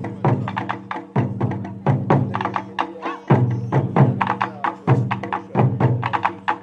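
Taiko drums played by an ensemble: fast, driving strokes in repeating phrases, each phrase starting on a loud hit, with sharp wooden clicks of sticks on the drum rims over the drums' low ringing.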